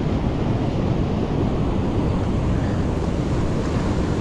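Surf breaking and washing over flat shoreline rocks, a steady rush of sea with wind buffeting the microphone.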